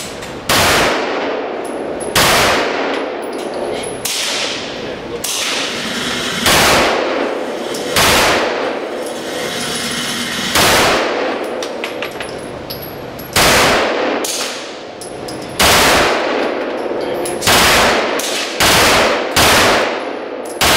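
Shots from a Brügger & Thomet TP9 9 mm machine pistol, about a dozen sharp reports spaced a second or two apart, each ringing and echoing off the walls of an indoor range.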